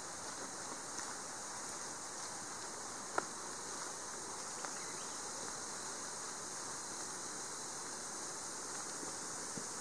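Steady outdoor ambience: an even, high-pitched insect hum with faint rustling, and a single sharp click about three seconds in.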